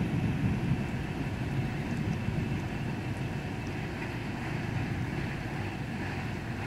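Continuous low rumble of a thunderstorm with a faint hiss above it, a little louder in the first second.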